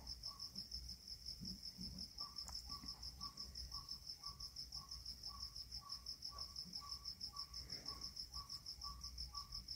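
An insect chirping steadily in the background, a high, fast, even pulsing. From about two seconds in, a faint short note repeats about twice a second.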